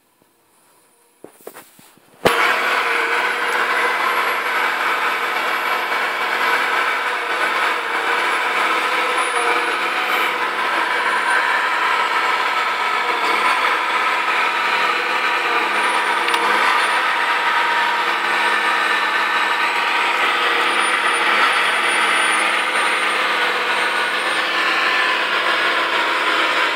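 Cat 523B tracked feller buncher working: its diesel engine and hydraulics run loud and steady, with a thin high whine wavering above them. The first couple of seconds are near silent before the machine sound cuts in suddenly.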